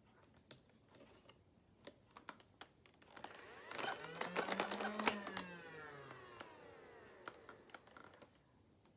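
A few light clicks and taps, then from about three seconds in a rush of sound from a vehicle passing by swells up, peaks near the middle and slowly fades, its pitch sweeping as it goes past.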